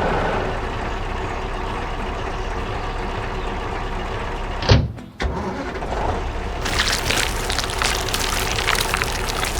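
Engine of an animated construction vehicle running steadily, then a single loud thump about halfway through. Dense rapid clicking and clattering follows near the end.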